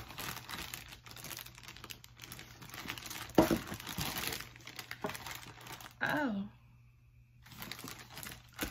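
Plastic-wrapped ingredient packets crinkling and rustling as they are handled, with one sharp knock about three and a half seconds in.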